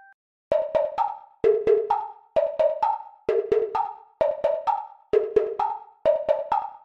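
Background music of short struck percussive notes in quick groups of four, the pattern repeating just under once a second; it starts about half a second in.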